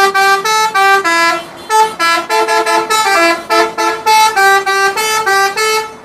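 Telolet musical bus horn playing a quick, loud tune of short notes stepping up and down in pitch, with a short break about one and a half seconds in. It cuts off sharply near the end.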